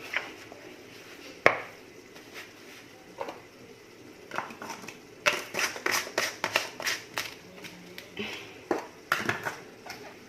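Clicks and knocks of a glass jar of salted lemons and its lid being handled and closed: one sharp click, then a quick run of clicks and knocks.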